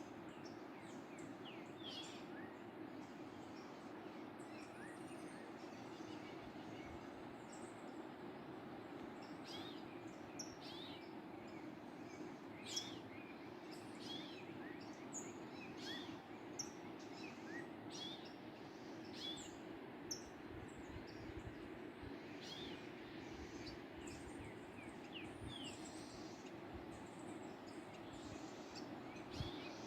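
Faint, steady rush of a waterfall, with small birds chirping in short, high calls scattered throughout.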